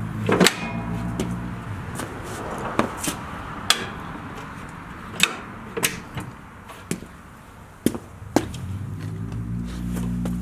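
Sharp metal clanks and clicks, about a dozen at uneven intervals, as a snowplow and its hydraulic quick-connect lines are fitted to a John Deere 318 garden tractor. A low engine-like hum is there at the start, fades out, and comes back near the end.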